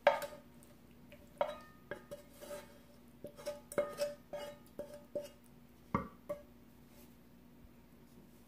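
A utensil clinking against cookware as cooked chicken is spooned onto baked potatoes, about fifteen irregular clinks over six seconds, each ringing briefly, then they stop.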